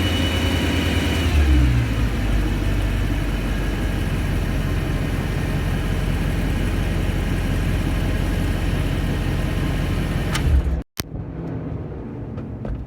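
Car engine coming down from a rev and settling to a steady idle about two seconds in. The engine is being checked for a thumping noise that comes with revving. Near the end there is a short sharp knock, then the sound cuts out briefly and comes back quieter.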